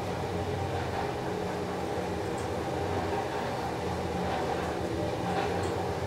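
Elevator car travelling up its shaft: a steady mechanical hum and rumble of the ride.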